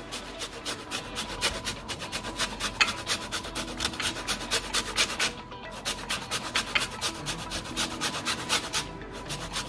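A lemon being zested on a stainless steel box grater: quick rasping strokes of peel against the metal teeth, about four a second, with a brief pause about five seconds in.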